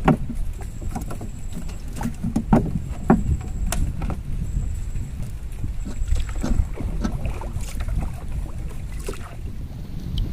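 Wooden paddle stroking through the water beside a small wooden boat, with scattered sharp knocks and a steady low rumble of wind on the microphone.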